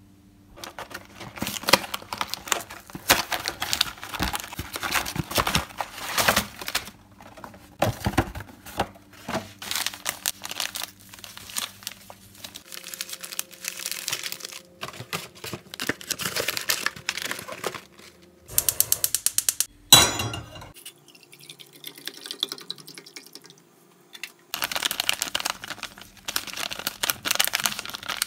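Paper-foil hot cocoa mix sachets and their cardboard box being handled: crinkling and rustling in short bursts, with light taps. About two-thirds of the way through comes a quick run of rapid ticks and then one sharp knock.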